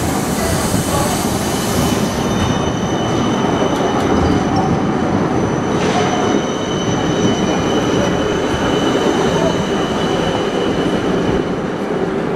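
Siemens Combino low-floor tram rolling past close by on street track, its wheels and running gear making a continuous rumble. A steady high-pitched whine sits over it from about two seconds in until near the end.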